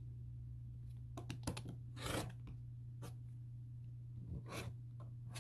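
Rotary cutter and acrylic ruler worked over a fabric strip on a cutting mat: a handful of short scraping strokes, the longest about two seconds in, over a steady low hum.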